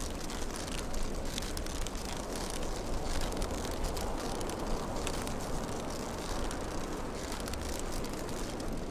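Wind-driven Strandbeest walking on sand, its plastic-tube legs and joints clattering with many quick irregular clicks, over a heavy rumble of wind buffeting the microphone.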